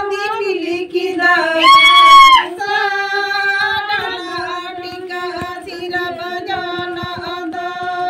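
A group of women singing a Santali Baha festival song together in long, wavering held notes, with a loud high note about two seconds in. Faint hand-drum strokes sound underneath in the second half.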